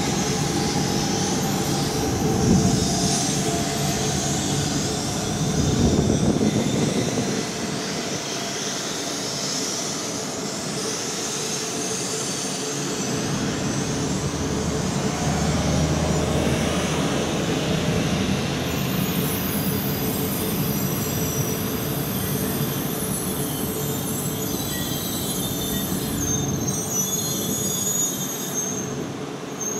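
An E4 series Max double-decker Shinkansen rolls slowly past with a steady rumble of wheels and running gear. A high-pitched wheel squeal sets in about two-thirds of the way through.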